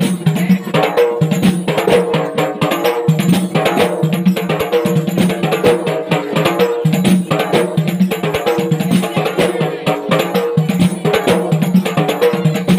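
A group of large Acehnese rapa'i frame drums struck together in a fast, dense interlocking rhythm, in the rapa'i geunta style, with a deep booming drum tone under sharp slaps.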